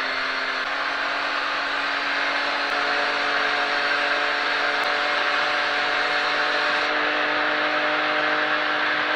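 Can-Am side-by-side's Rotax engine running steadily while driving, its pitch creeping up slowly, over a constant rushing noise.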